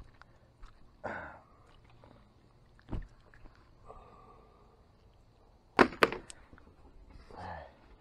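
Handling noises from unhooking a caught bass: a dull knock about three seconds in, some rustling, then a quick cluster of three or four sharp clacks about six seconds in, the loudest sound.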